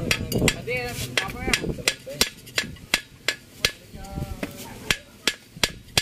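Steel hammer striking the rim of a cylinder liner in an Isuzu 4BC2 engine block, sharp metallic taps in a steady rhythm of about three a second.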